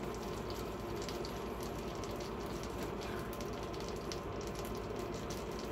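Steady hum of a countertop electric infrared burner's cooling fan, with faint scattered crackles of butter heating in a frying pan on medium-high.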